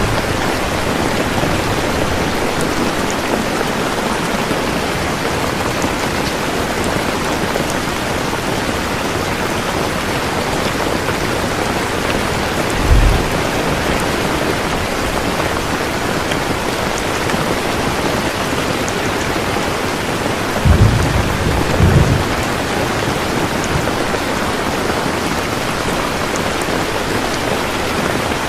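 Steady heavy rain falling, an even hiss of drops, with three brief low rumbles: one about halfway through and two close together a little later.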